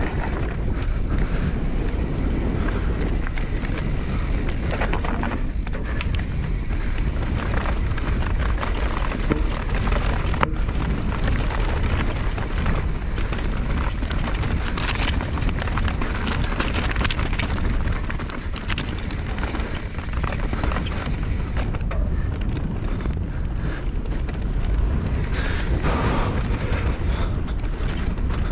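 Mountain bike descending at speed over rocky dirt trail: tyres rolling and rattling over loose stones with frequent small knocks from the bike, under heavy wind buffeting on the camera microphone.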